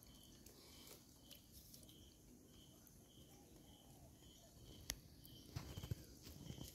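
Near silence: quiet outdoor ambience with a faint high chirp repeating about twice a second, one sharp click about five seconds in, and a few soft low thumps near the end.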